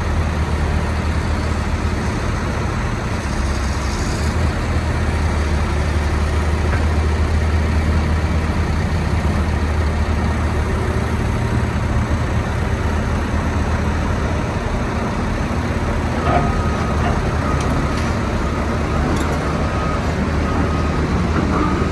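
Caterpillar 325C excavator's diesel engine running steadily with a low drone while the machine swings its house and boom around. A faint, broken high tone comes in over it near the end.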